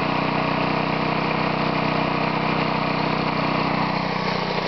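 Briggs & Stratton 3.5 hp single-cylinder lawnmower engine running steadily at low revs. It is belt-driving a homemade air compressor that is pumping air into its tank.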